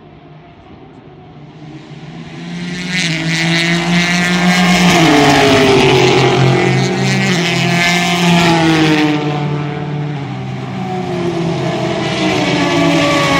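Race car engines at racing speed passing by: a pair of GT cars builds up and sweeps past, their engine notes dropping in pitch as they go by, then a pack of prototype sports cars arrives near the end.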